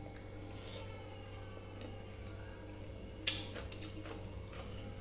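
A hand working through water-soaked rice on a steel plate and mouth eating sounds, soft and wet, with small clicks and one sharp click about three seconds in.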